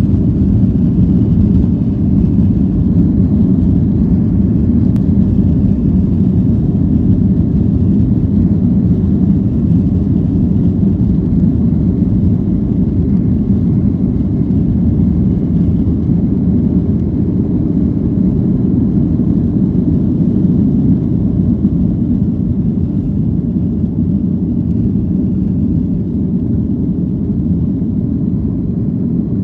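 Jet airliner cabin noise during takeoff: a steady, loud, deep rumble from the engines and the roll down the runway, easing a little near the end as the plane climbs away.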